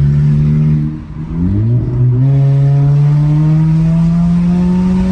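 Volkswagen Golf 1.6 MSI four-cylinder engine running through an exhaust diffuser fitted in place of the catalytic converter, heard under acceleration. About a second in, the note drops and briefly quietens. It then picks back up and climbs steadily in pitch as the car pulls.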